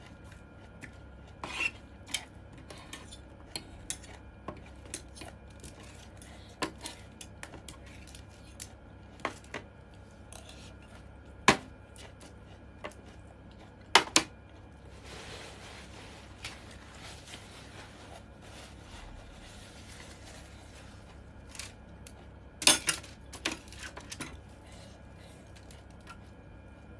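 Cutlery clinking and tapping against a dish during a meal, in scattered irregular taps. There is a sharper knock about eleven seconds in, two more close together a few seconds later, and a quick flurry of taps near the end, with a soft hiss for a few seconds in the middle.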